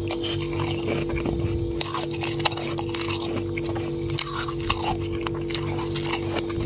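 Freezer frost being bitten and chewed, with repeated irregular crunches and crackles. A steady low hum runs underneath.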